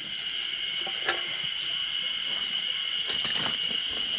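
A sharp metallic clink about a second in, then a few lighter knocks, from a small metal firebox camp stove being handled. Under it runs a steady high insect drone and the rush of a small stream.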